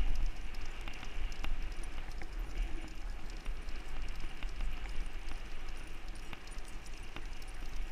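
Wind rumbling on the microphone and wheels rolling over wet asphalt while two huskies pull the rig at a run, with scattered light clicks and taps throughout.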